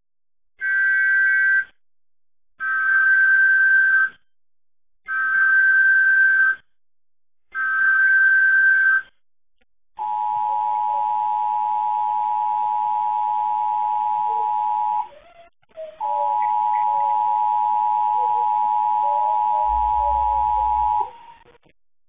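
Emergency Alert System weekly test tones: four short bursts of the SAME header's digital data tones, each about a second and a half long, followed by the two-tone EAS attention signal held steady for about five seconds, dropping out briefly and resuming for about five more.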